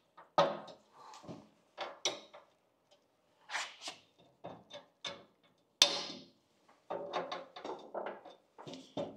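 Irregular knocks, clicks and clatter of hand tools and parts being handled while fitting a part onto a table saw, with one sharp click about six seconds in.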